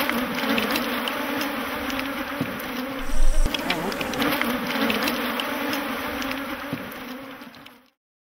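Honeybees buzzing in a steady, dense hum, which fades out near the end.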